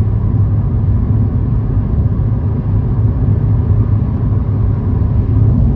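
Car driving along a road: steady low engine and tyre rumble.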